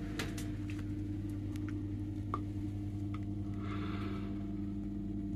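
Steady low electrical hum, with a few faint scattered clicks and a brief soft rustle near the middle.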